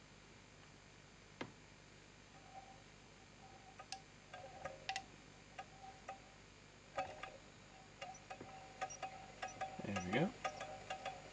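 DjuiinoStar low-temperature Stirling engine's metal linkage and flywheel ticking and ringing lightly. The clicks are sparse at first, then become a steady quick run once the flywheel is flicked by hand and the engine starts running on the heat beneath it. A brief falling-then-rising sweep comes about ten seconds in.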